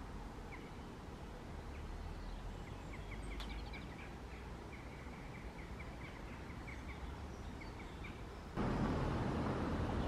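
Faint magpie chatter, runs of quick repeated calls, over a steady low background rumble. About eight and a half seconds in, a louder steady noise cuts in abruptly.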